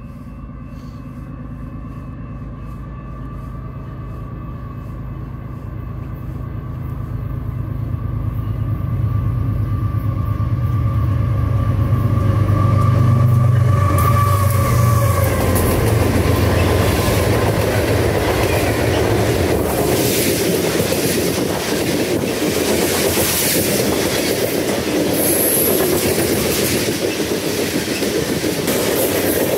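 Freight train approaching and passing at speed. The low drone of its diesel locomotives builds up until the lead units go by about halfway through. Then come the rush and clatter of covered hopper cars rolling on the rails, with a brief high wheel squeal near the end.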